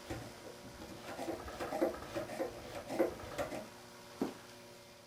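Clamp being tightened to draw a press-fit nut into a hole in a wooden leg: a run of faint, irregular creaks and clicks, then a single knock about four seconds in.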